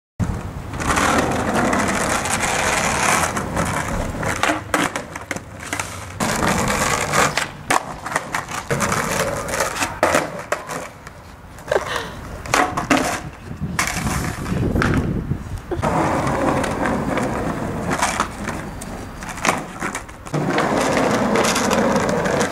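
Skateboard wheels rolling over rough street asphalt in several long stretches, broken again and again by sharp pops of the tail and clacks of the deck landing or hitting the ground as kickflips are tried.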